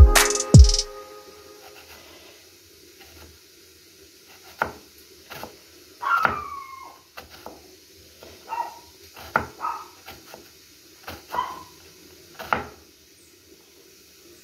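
Knife chopping an onion on a cutting board, heard as scattered sharp knocks, while a pet animal gives several short cries that fall in pitch.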